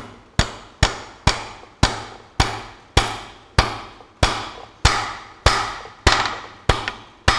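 Ball-peen hammer striking steel on the top of a Ferguson tractor's front kingpin, tapping the key home in its keyway. The blows are evenly paced, about two a second, and each rings briefly on the metal.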